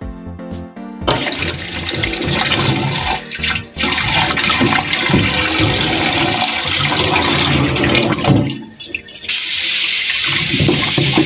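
Background music stops about a second in, giving way to a kitchen tap running into a steel bowl of raw pork pieces in a stainless steel sink, with hands rubbing and sloshing the meat in the water. The water noise dips briefly about eight and a half seconds in, then picks up again.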